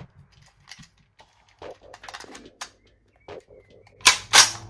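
Plastic rotary pellet magazine of a Hatsan Blitz .22 PCP air rifle being handled with light clicks and taps. Near the end the magazine is pushed into the receiver with two loud, sharp clicks about a third of a second apart.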